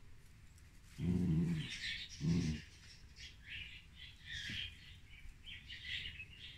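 A Havanese dog grumbling twice, a longer growl about a second in and a shorter one a second later. Birds chirp faintly in the background.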